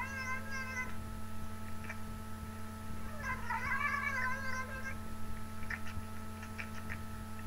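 Tabby cat meowing: one call tails off about a second in, then a long drawn-out meow starts about three seconds in and lasts some two seconds, rising and then holding its pitch.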